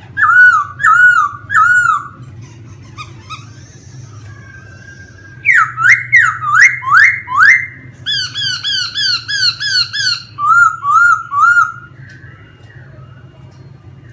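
Laughingthrush singing loud, varied phrases: three slurred whistled notes near the start, a run of five rising sweeps about halfway, then a quick series of about ten notes and three more slurred notes. The song stops near the end, and a steady low hum runs underneath.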